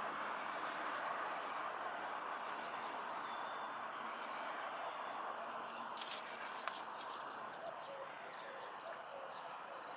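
Outdoor waterside ambience: a steady background hiss with small birds chirping faintly, and a short cluster of sharp high clicks about six to seven seconds in.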